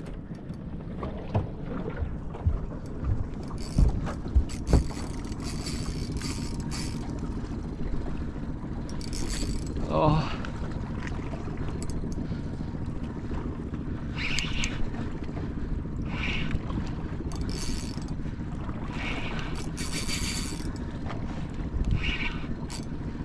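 Wind on the microphone and water noise aboard a small boat while a fish is pumped and wound in on rod and reel, with a few sharp knocks about two to five seconds in and short hissing bursts throughout.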